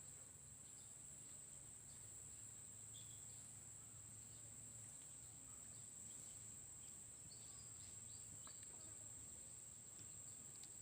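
Near silence with a faint, steady high-pitched insect chorus, like crickets, and a few faint scattered chirps.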